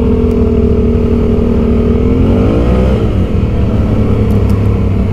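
ATV engine running at a steady speed, with a brief rise and fall in revs about two seconds in.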